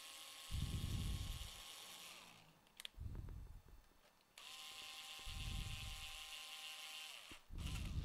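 Cordless electric screwdriver whirring in two spells of about three seconds each, turning the screws of a laptop's DC jack bracket, its pitch sagging as each spell ends. Low thuds of handling come in between.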